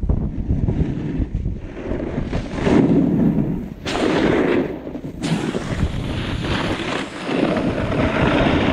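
Wind rushing over the microphone during a downhill ski run, mixed with skis scraping over packed snow, swelling in surges as the skier turns, with a couple of brief sharp scrapes near the middle.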